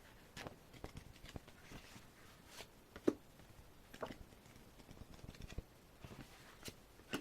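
Scattered soft clicks, taps and rustles of a CD album package and its photocards being handled and pulled out.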